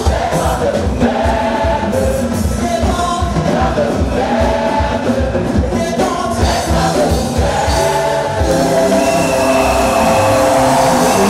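Gospel praise song sung by a choir over a band with a strong steady beat.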